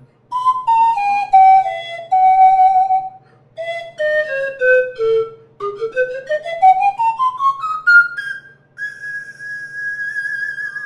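A 15-pipe alto pan flute tuned in C is played solo with breathy, clear notes. It plays a falling run of notes to a held note, then another falling phrase and a quick rising run up the pipes, and ends on a long high note with a slight vibrato.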